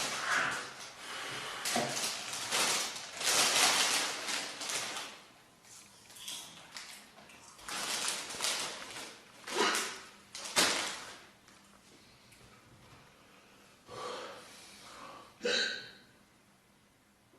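A string of women's burps, one after another and of varying length, the longest and loudest about three to four seconds in, with two short ones near the end.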